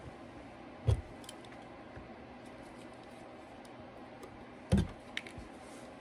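Two dull knocks about four seconds apart, with a few faint clicks just after the second, from copper wires being handled at a wall outlet box with a multi-tool blade.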